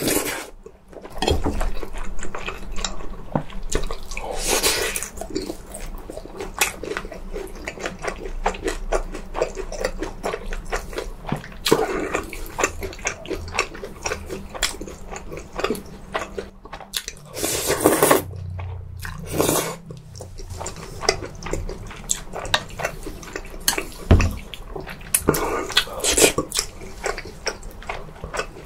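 Close-miked eating sounds: wet chewing and biting with small crackles throughout, and a few louder, noisier mouthfuls about five seconds in, around eighteen seconds and near the end.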